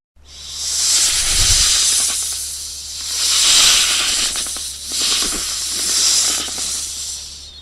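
A snake hissing in threat: long breathy hisses that swell and ebb about four times, then fade out near the end.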